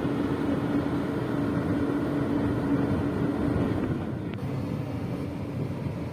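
Heavy construction vehicle's engine running steadily, a low rumble with a steady hum that fades out about three seconds in.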